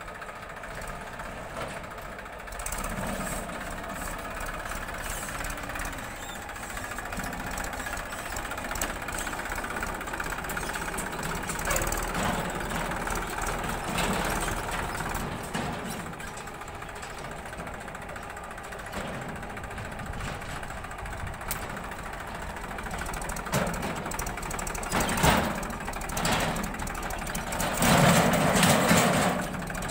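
Diesel engines of a Massey Ferguson 241 DI tractor and a JCB backhoe loader running steadily, with a loud burst about 25 seconds in and the loudest stretch near the end.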